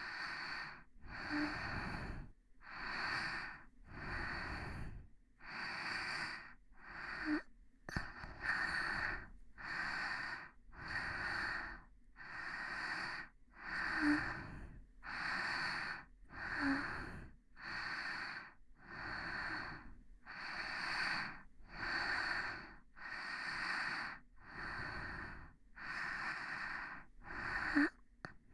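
Slow, close-miked ASMR breathing: soft, even breaths in and out, one every second and a half or so, with a slight catch of voice in a few of them.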